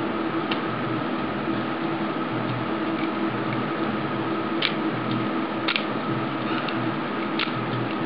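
Lock pick and tension wrench working the pin-tumbler cylinder of a VGARD discus padlock: a few faint clicks, then about five sharp metallic clicks in the second half, over a steady hum and hiss.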